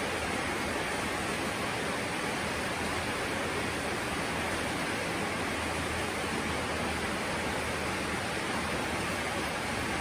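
Steady rain falling, an even unbroken hiss with no single drops or other sounds standing out.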